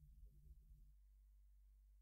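Near silence between songs: a faint steady low hum, with faint low rumbling that stops about a second in.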